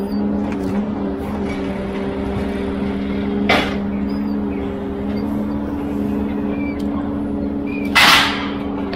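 Ponsse Elephant forwarder's 286 hp diesel engine running at a steady speed while the crane works. There are two short hisses, about three and a half seconds in and again near the end; the second is louder.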